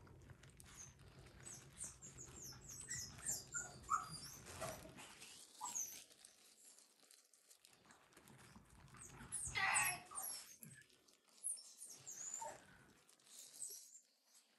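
Young Maltese puppies giving short, high, thin squeaks as they squirm over one another on blanket bedding, with a louder rustle of the bedding about ten seconds in.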